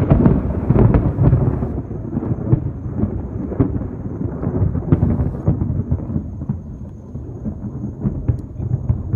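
Close thunder: a sudden loud clap, then a long rolling rumble full of sharp crackles that slowly eases off.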